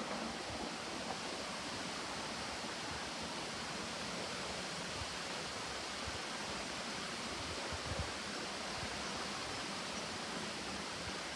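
Steady wind noise: breeze hissing through the trackside trees, with soft irregular low buffeting of wind on the microphone.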